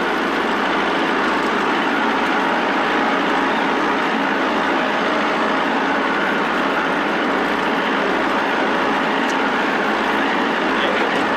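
Farm tractor engine running steadily under way, an even, unbroken din with no change in pitch or level.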